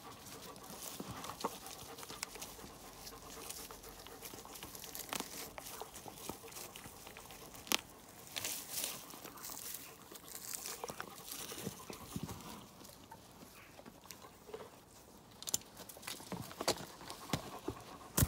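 Quiet farmyard ambience with scattered light clicks and knocks and brief rustling of straw on cobbles, from a standing pony and dogs moving about.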